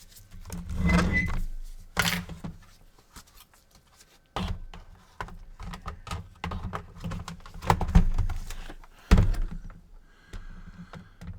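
Hands working on a PS4's opened housing and small parts: irregular clicks, taps and scrapes of plastic and metal, with a few sharper knocks, as a bent-up steel contact prong is fitted back into place.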